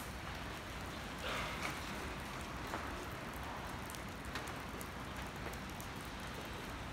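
Steady hiss of light rain on a wet street, with faint scattered footstep clicks on the wet pavement and a brief louder swish a little over a second in.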